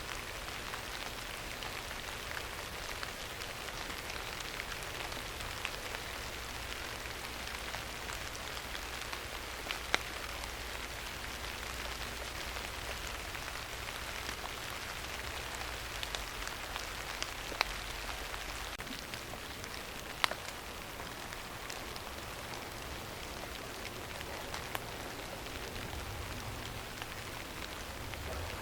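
Steady rain falling, with scattered sharp drop ticks and a few louder single clicks, about a third of the way in and twice more shortly past the middle.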